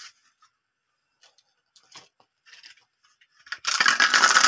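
Glass marbles clicking on a wooden marble run: a few scattered clicks, then, about three and a half seconds in, a dense rattle of many marbles clattering together for about a second.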